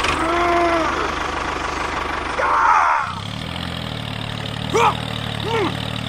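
Tractor engine sound for a toy tractor: a fast, rattly running that changes to a steadier, lower hum about three seconds in.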